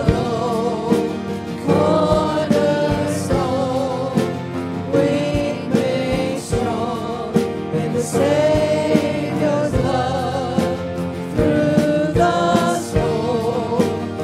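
Worship team of several voices singing a contemporary hymn together in harmony, with acoustic guitar and a steady low beat.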